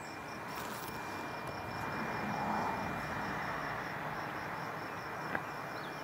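Insects chirping outdoors in a steady high-pitched pulse, several chirps a second, over a distant rushing noise that swells to a peak mid-way and fades again.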